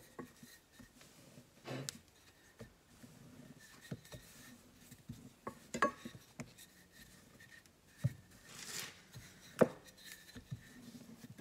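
Wooden rolling pin rolling bread dough flat on a floured silicone mat: soft rubbing with scattered light knocks and clicks, the sharpest knock near the end.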